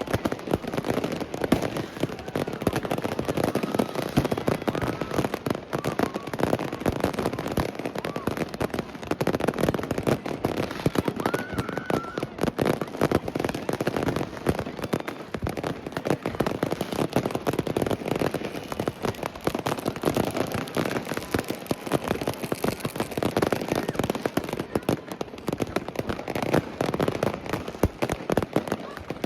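Fireworks and firecrackers going off all at once in a dense, unbroken crackle of pops and bangs, with a few brief whistles in the first half.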